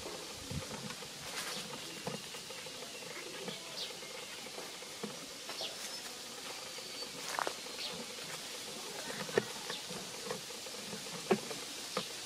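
Dry leaves and twigs rustling and snapping as monkeys move about the branches, in scattered clicks with a few sharper snaps late on, over a steady high hiss of insects.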